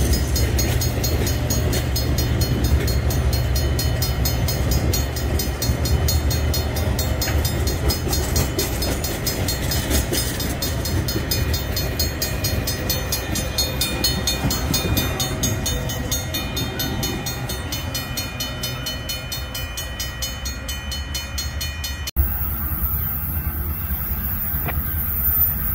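Freight train tank cars rolling past close by: a steady rumble of steel wheels on rail with a fast, even clatter from the trucks. About 22 seconds in the sound cuts abruptly to a quieter, low steady rumble of a diesel locomotive approaching at a distance.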